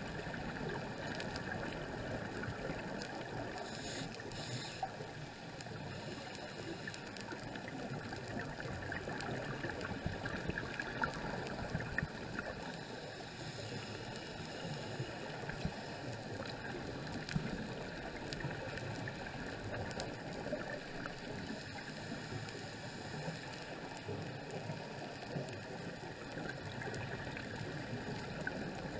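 Underwater ambience picked up by a camera in its housing over a coral reef: a steady, muffled rushing of water with fine crackling throughout.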